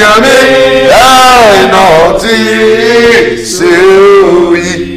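A man singing in a chant-like style, with long held notes that slide up and down in pitch.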